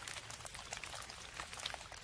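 Rain falling: a steady patter of many separate drops hitting, irregular and unbroken.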